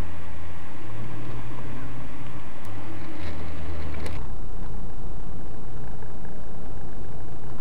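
Car engine and road noise heard from inside the cabin through a dashcam's microphone, a low hum that steps up and down in pitch. About four seconds in it changes abruptly to a duller, steadier rumble from a second dashcam.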